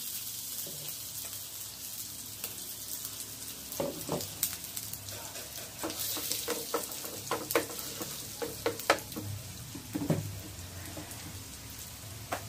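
Butter melting and sizzling in a nonstick frying pan. From about four seconds in, a wooden spatula stirs it, with scattered scrapes and taps against the pan.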